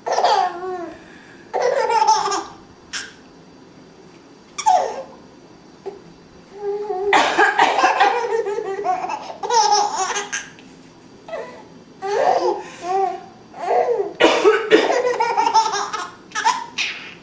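A baby laughing in bursts at a woman's coughing; short coughs and longer runs of giggling laughter alternate, with quiet gaps between them.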